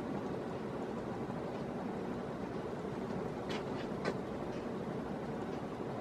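NuTone Verandah Deluxe paddle ceiling fan running on its high speed, a steady rushing of air and motor noise. A couple of light clicks about three and a half and four seconds in.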